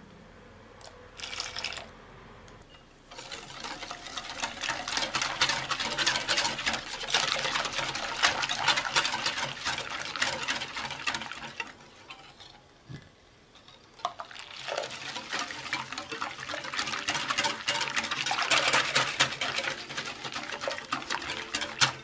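Wire whisk beating a thin, milky matcha custard base in a glass bowl, the wires splashing through the liquid and clicking against the glass. Fast whisking comes in two long spells with a short pause near the middle.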